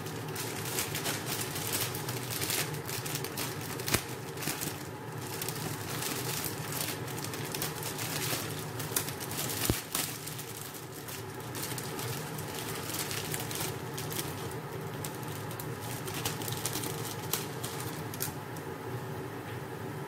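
Vegetable-and-sausage broth simmering in a nonstick pot on a gas stove: a steady hiss dotted with many small pops and crackles, over a steady low hum, with a couple of sharper clicks.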